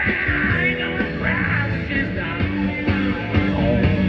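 Live country-rock band playing an instrumental passage: electric and acoustic guitars, bass guitar and a drum kit.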